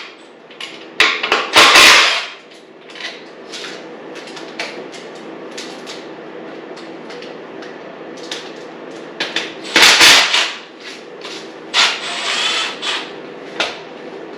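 Hand tools working on a dirt bike's engine mount bolts: a socket and ratchet being fitted and turned, with clicks, knocks and clattering metal. There are louder bursts of clatter about a second in, around ten seconds in, and near the end.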